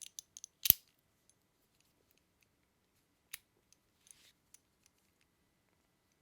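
Blue titanium fidget toy being worked in the hand, giving metallic clicks and snaps: a few light clicks, then one loud sharp snap just under a second in, another about three seconds in, and a few faint ticks soon after.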